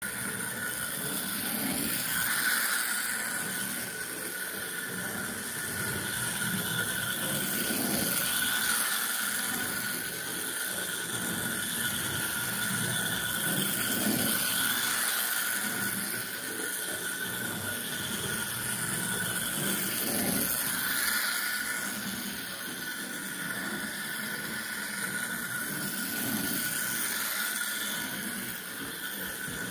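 American Flyer 740 motorized toy handcar running laps on its track: a steady high whine from its small electric motor and gearing. The whine swells and fades about every six seconds as the car circles the loop.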